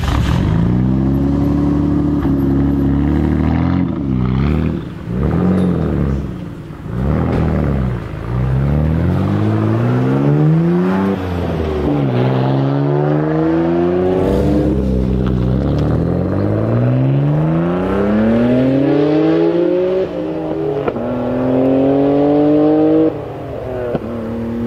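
Nissan Skyline R34 GT-R's 2.6-litre twin-turbo straight-six through an aftermarket Tomei exhaust. It holds a steady note for a few seconds, is blipped up and down, then pulls hard in a series of rising runs, each dropping back and climbing again as the car accelerates.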